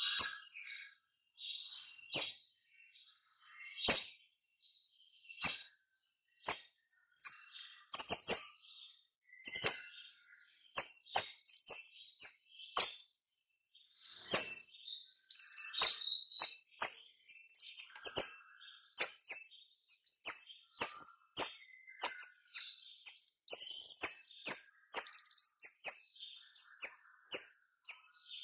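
Caged kemade bird calling in a rapid 'nembak' run: short, sharp, high chirps, spaced out at first and coming close together, about two a second, over the second half.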